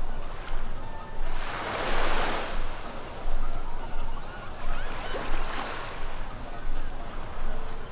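Surf on a sandy beach: waves breaking and washing in, with a loud wash about two seconds in and a smaller one around five seconds.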